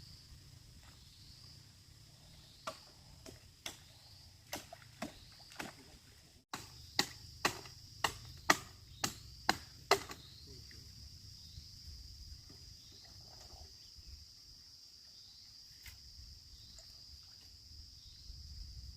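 Sharp tool strikes on bamboo while building a coop: a few scattered blows, then about a third of the way in a quick run of about seven evenly spaced, louder blows, roughly two a second.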